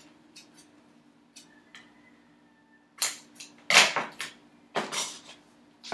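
Double-sided adhesive tape being handled, pulled and cut by hand. A few faint clicks come first, then a cluster of short, sharp, scratchy sounds about three to five seconds in, loudest near four seconds, with one more at the end. A faint steady low hum lies underneath.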